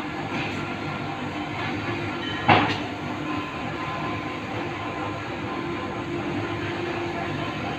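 Hydraulic goods lift running as its platform rises, a steady mechanical hum, with one sharp knock about two and a half seconds in.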